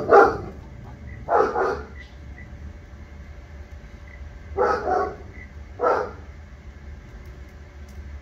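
A dog barking in short bursts of one or two barks, four times over the stretch, over a steady low rumble.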